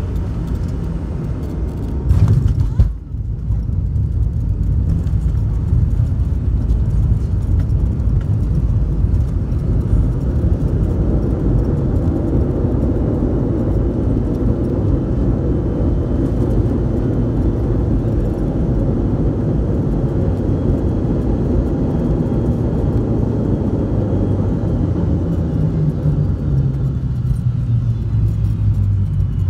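Cabin of a McDonnell Douglas MD-88 airliner landing: a short loud jolt about two seconds in as the wheels touch down, then the steady heavy rumble of the jet rolling out along the runway. Near the end a few tones fall in pitch as it slows.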